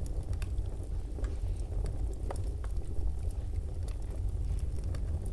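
Barbecue grill sizzling: scattered crackles and pops over a steady low rumble.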